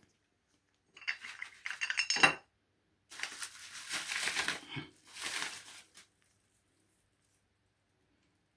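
Small hard parts clinking and rattling as they are handled, in two bouts of quick knocks: one from about a second in, a longer one from about three seconds in, stopping about six seconds in.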